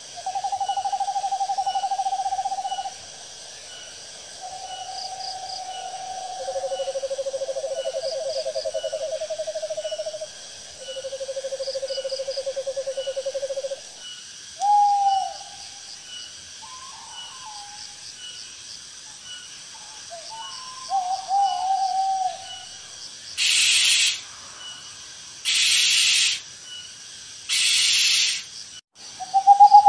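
Owl calls: long trilled notes of two to three seconds each at several pitches, some overlapping, then shorter wavering hoots. Near the end come three harsh hissing bursts about two seconds apart. Insects chirp steadily and faintly behind.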